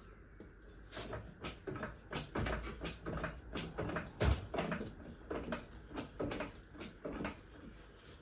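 Trolley jack being pumped under a car: a run of short metallic clunks and clicks, about two a second.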